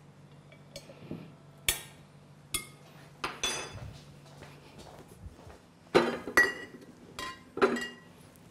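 Several sharp glass clinks and knocks as a glass olive-oil bottle is handled and set down among other items, the loudest about six seconds in.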